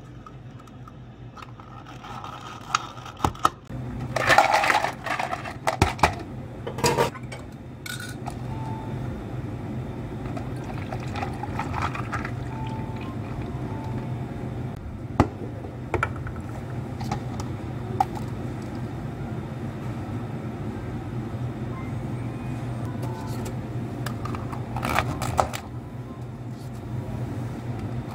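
Iced drinks being made in plastic cups: knocks and clinks of cups and ice, tea poured from a glass measuring cup over ice, and plastic dome lids pressed onto the cups near the end, over a steady low hum.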